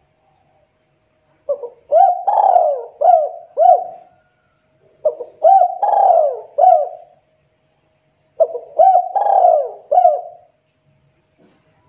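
Spotted dove cooing: three phrases of four or five hooting coo notes each, a second or so apart.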